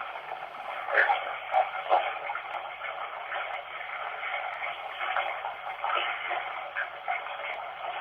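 Steady hiss of running water, thin and narrow in range like sound through a small speaker, with irregular louder snatches about one and two seconds in and a faint low hum underneath.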